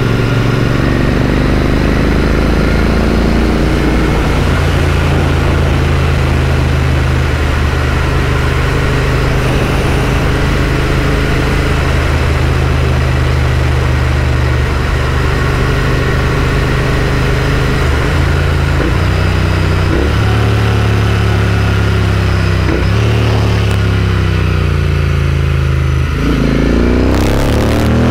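Royal Enfield Interceptor 650's parallel-twin engine with aftermarket AEW mufflers running steadily under way, with wind rush. The engine note shifts a few times in the second half, then drops and climbs again near the end as the bike accelerates.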